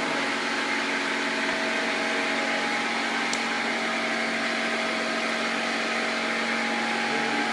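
A steady motor-driven machine running with a constant hum and hiss, and one faint click about three seconds in.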